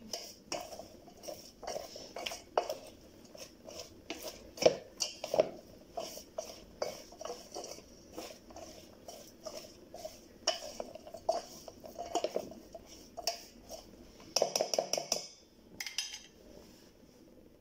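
A utensil stirring herbs into camel hump fat in a cooking pot, with irregular clinks and scrapes against the pot. A quick flurry of strokes comes near the end, then the stirring eases off.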